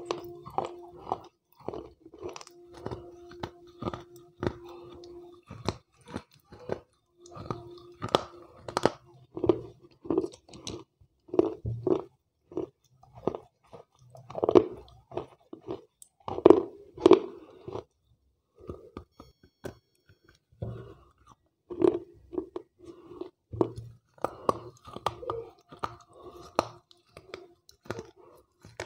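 Wet slate pencil being bitten and chewed up close: an irregular run of sharp crunches and gritty chewing, the loudest bites about halfway through.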